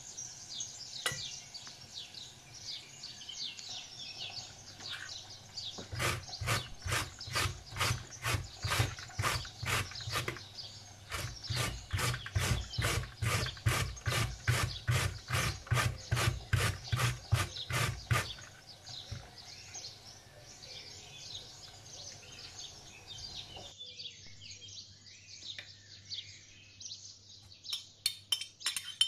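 Raw beetroot rubbed on a hand-held metal grater: rhythmic rasping strokes, about two a second, starting some six seconds in and running for about twelve seconds with a brief pause partway. Softer knife and handling sounds come before and after.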